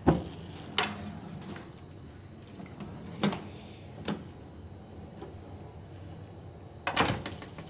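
Aluminium screen door with a pneumatic closer being worked: a series of sharp clacks and knocks as it opens and shuts against the frame, the loudest near the start and about seven seconds in. The closer is working on its newly replaced frame bracket.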